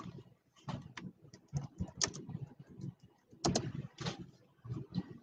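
Irregular light clicking of a computer mouse and keyboard keys, with two louder clatters about three and a half and four seconds in.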